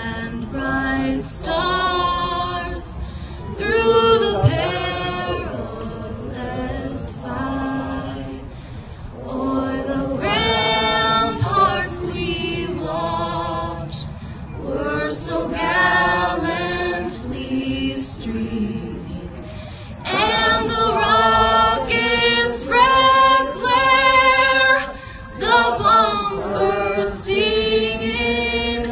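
A woman singing solo and unaccompanied into a microphone, heard through an outdoor PA loudspeaker, in long held phrases with short breaks between them.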